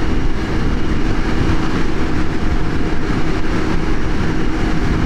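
Piaggio Medley 150 scooter's liquid-cooled 155 cc single-cylinder engine held at full throttle near its top speed of about 118 km/h: a steady engine drone under a constant rush of wind noise.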